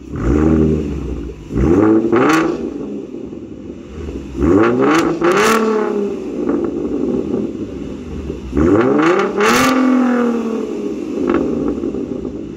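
2014 Ford Mustang's 3.7-litre V6 through Roush axle-back mufflers, revved from idle about four times. Each rev rises in pitch and falls back to idle, and it is pretty loud.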